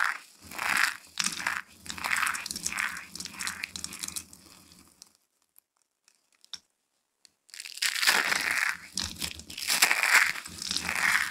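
Handfuls of dry soap curls being squeezed and rustled between the hands, a crisp crinkling crunch that comes in repeated squeezes. It stops for about two and a half seconds near the middle, with only a few faint clicks, then starts again.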